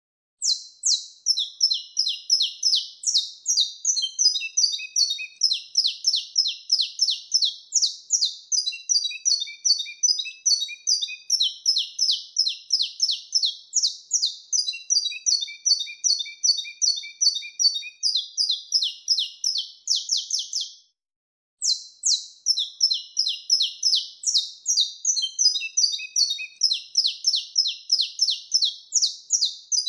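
Saffron finch (canário-da-terra) singing the wild-type 'mateiro sinado' song: long phrases of rapid, sharp, high notes, several a second, phrase after phrase. The song stops briefly a little past two-thirds of the way in, then picks up again.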